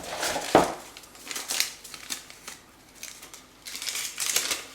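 Metal parts of a Webtex Warrior cooking set being handled and fitted together: a sharp clink about half a second in, then short bouts of scraping and rattling, the longest near the end.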